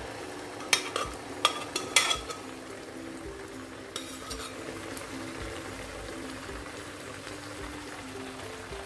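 Boiled mustard greens being scraped out of a pressure cooker into a frying pan of onion-tomato masala: a few sharp metal knocks and scrapes in the first two seconds, then the pan frying steadily.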